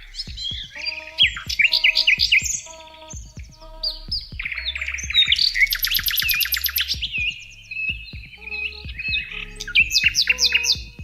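Several songbirds chirping and singing over one another, in quick runs of rising and falling whistled notes and trills, with a long rapid series in the middle.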